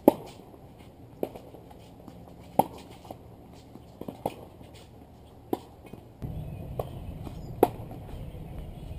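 Tennis balls struck by rackets in a rally: sharp pocks every one to one and a half seconds, the loudest ones alternating with fainter hits from the far end of the court. About six seconds in, a steady low rushing noise comes in under the hits.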